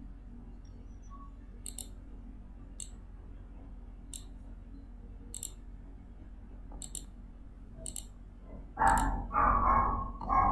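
Computer mouse clicking: a single or quick double click every second or so over a low hum. Near the end comes a louder, short stretch of noise from an unclear source.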